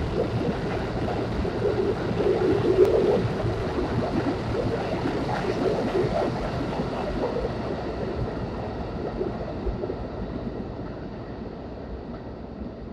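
R160 subway train departing the station, its wheels rumbling and rattling on the rails as it passes and then fading away into the tunnel.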